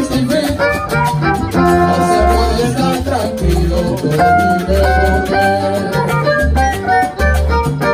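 Live salsa band playing an instrumental passage, with held melody notes over a repeating bass line.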